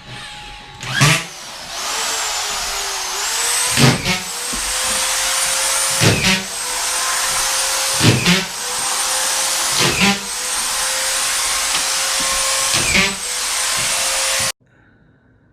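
A power tool's motor running steadily with a high whine, broken by a sharp knock about every two seconds; it cuts off suddenly near the end.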